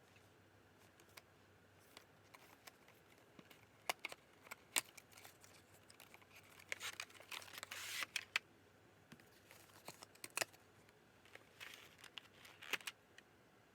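Packaging being handled during an unboxing: scattered sharp clicks and taps, with crinkling from about six and a half to eight and a half seconds in and again near the end.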